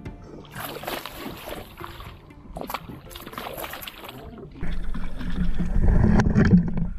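Water splashing and trickling as a hooked rainbow trout thrashes at the surface and is scooped into a landing net. About two-thirds of the way in, a loud low rumble of water and handling noise starts close to the microphone.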